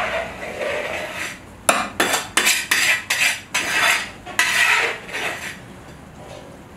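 Metal skimmer scraping and clinking against the wall of a large kazan as cooked plov rice is stirred and turned. The strokes come in a quick run of short scrapes, thickest through the middle, and die away about five and a half seconds in.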